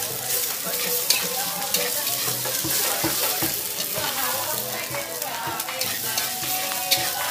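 Seblak fried noodles sizzling in a hot pan as they are stirred, with a few sharp clicks along the way.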